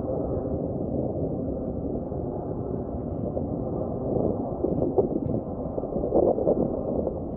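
Distant jet aircraft rumbling steadily overhead. These are the Patrouille de France's Alpha Jets, and the roar is low with a couple of crackling swells near the end.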